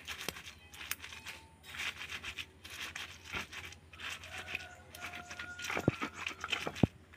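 A stone pestle crushing and grinding fresh chilies, shallots and tomato against a stone mortar (ulekan and cobek) for sambal terasi. It makes irregular crunching and scraping with clicks of stone on stone, and two sharper knocks near the end.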